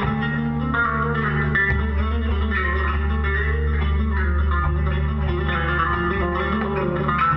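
Electric bass guitar with a Kahler tremolo bridge playing a melodic line over a low held note, the higher notes wavering in pitch.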